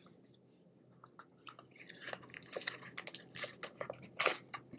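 Cardboard fast-food burger box being pried open and handled: a quiet start, then from about a second and a half in a run of crackles and clicks from the box, loudest near the end.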